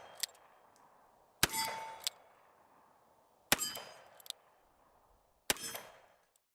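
Sharp metallic clangs, three of them about two seconds apart, each ringing briefly and followed about half a second later by a small click.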